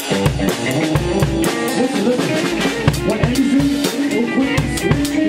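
Band playing together live: a drum kit with many quick strikes over electric guitars and a bass guitar.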